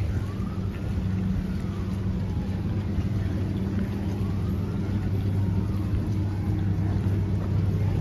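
A steady low mechanical hum, like a motor or engine running without pause, with faint whines that rise and fall in pitch above it.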